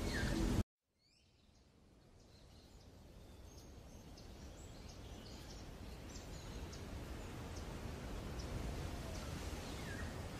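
Outdoor rice-field ambience: steady background noise that cuts out abruptly about half a second in, then fades slowly back up, with faint scattered bird chirps.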